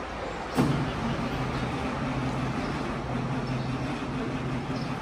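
Samsung SE450LC-2 excavator's diesel engine being started for the first time after more than ten years standing idle. The sound comes in suddenly about half a second in and then holds a steady hum.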